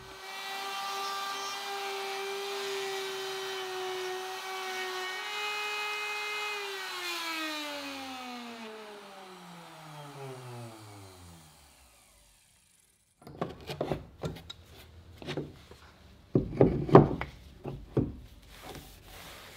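Plunge router cutting a deep hinge mortise in a wooden door jamb through a template. It runs at a steady high pitch for about six seconds, then is switched off and winds down in a long falling whine. After a short silence come scattered clicks and knocks as the metal hinge is handled and set into the mortise.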